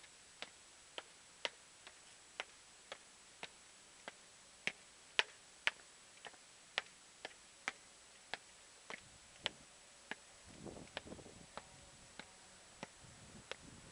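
Footsteps climbing concrete stairs: sharp, even steps about two a second, with a brief rustle about ten seconds in.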